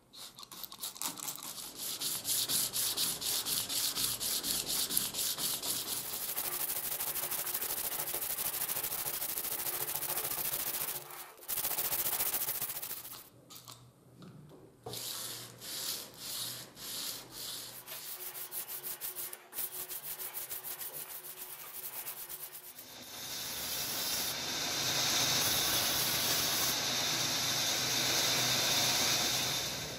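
Steel sledgehammer head being sanded, a scraping rub in quick even strokes that pauses and restarts a few times. About three-quarters of the way through, it gives way to a band saw cutting a round oak branch for the handle, a steady, louder sound.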